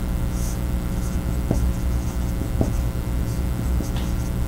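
Steady low hum of room noise, with a few faint, short scratchy strokes of a dry-erase marker writing on a whiteboard.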